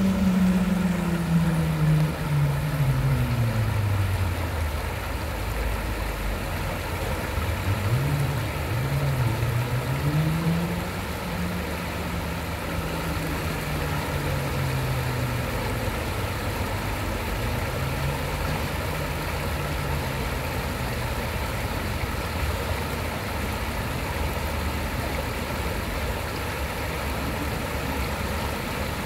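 Shallow stream rushing steadily over rocks, under the sound of an engine running. The engine's pitch drops over the first several seconds, rises and falls a few times around ten seconds in, then holds fairly steady with small dips.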